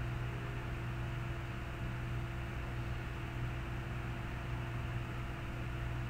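Steady hiss with a low electrical hum underneath, unchanging throughout.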